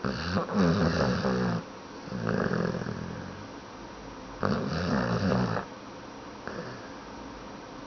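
Snoring: two loud, rattling snores, each about a second long and some four seconds apart, with a softer snore between them and a faint one near the end.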